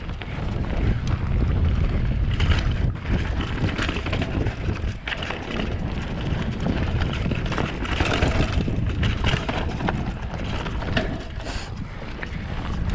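Mountain bike moving fast down a gravel forest trail: wind buffeting the camera microphone as a steady low rumble, with tyre noise and frequent short rattles and knocks as the bike goes over bumps.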